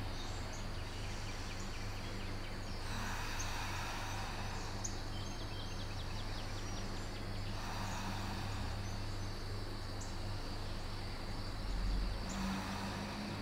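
Quiet room ambience: a steady low hum under an even hiss, with a few faint, short high chirps.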